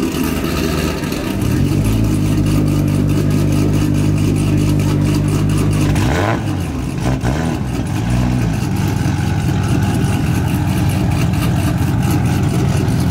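1200-horsepower Toyota Supra's 2JZ inline-six just started and idling with a steady drone, with a brief dip and rise in pitch about six seconds in. From about eight seconds the engine note turns rougher and choppier.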